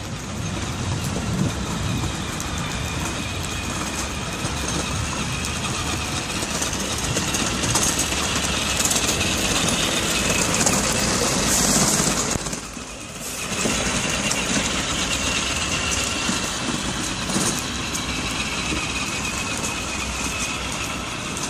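Child's electric ride-on toy car driving over paving stones, its plastic wheels rattling steadily. The noise dips briefly about thirteen seconds in.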